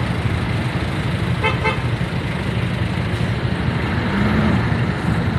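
Steady low rumble of motorcycle engines in slow, stop-and-go traffic, with a vehicle horn giving two quick beeps about a second and a half in.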